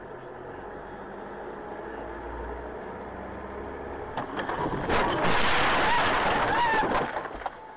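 Dashcam audio from inside a moving car: steady engine and road noise, then about five seconds in a loud, harsh burst of noise lasting about two seconds as the car collides or skids off the road.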